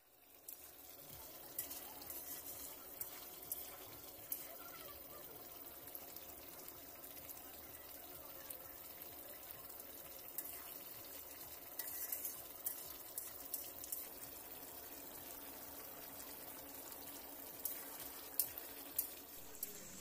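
Chicken pieces frying in masala in a large wok: a steady sizzle with scattered crackles and pops.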